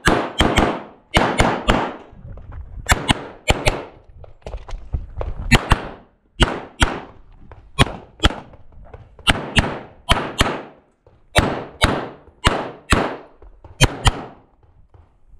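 9mm Walther PPQ Q5 Match SF pistol fired in quick pairs of shots (double taps), about a dozen pairs with short pauses between them. Each shot is followed by a brief echo.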